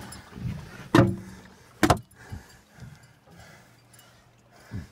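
Heavy knocks and thuds on a fishing boat as a big halibut is hauled in at the open door: two loud sharp knocks about a second apart, then quieter rustling and a softer knock near the end.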